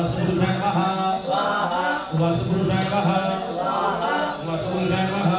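Sanskrit mantra chanting: a voice recites in steady, rhythmic phrases with brief pauses between them.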